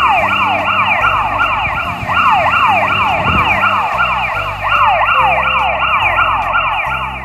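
Electronic siren wailing in fast, repeating downward sweeps, about three a second, over background music.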